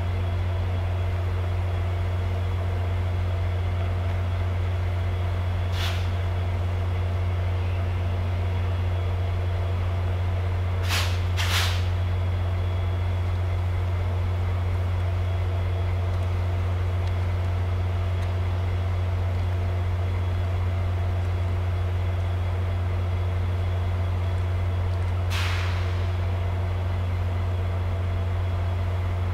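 VIA Rail F40PH diesel-electric locomotives running steadily at a standstill, a deep even hum with fixed tones above it. Four short hisses of air, likely from the train's air brake system, come about six seconds in, twice in quick succession around eleven seconds, and again near the end.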